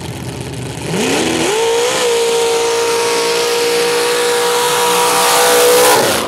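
Mud-drag off-road vehicle's engine going to full throttle: about a second in it revs up fast and holds at a steady high pitch with a rushing hiss over it, then drops off near the end.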